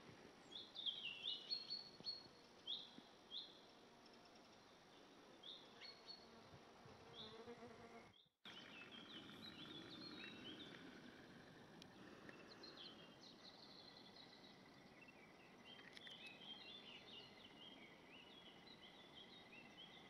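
Faint birdsong: small birds chirping and twittering in short, high notes over a quiet background hiss. The sound drops out for a moment about eight seconds in, then the twittering resumes.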